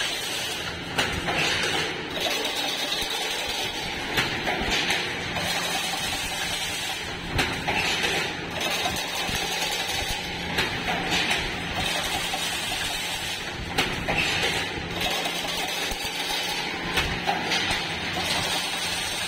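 Automatic chain link fence-making machine running: a steady mechanical clatter and hum, with frequent irregular sharp metallic clicks and knocks.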